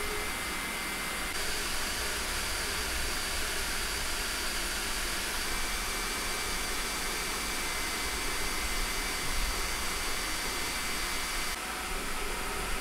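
Elegoo Neptune 4 3D printer printing: a steady rush of its cooling fans with thin, high whining tones over it that change pitch a few times.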